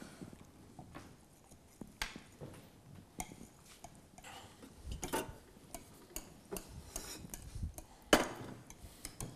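Metal wire whisk stirring yogurt and cornstarch in a bowl, giving irregular light clicks and scrapes against the bowl's side, with a louder knock about five seconds in and again about eight seconds in.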